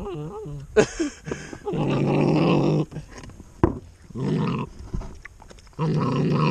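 Dutch Shepherd puppy growling in three bouts of up to about a second each, with two sharp knocks between them.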